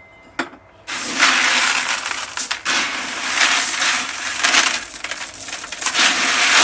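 Dry Hickory King seed corn kernels rattling and clattering against each other, a dense continuous crunching clatter that starts about a second in after a single click.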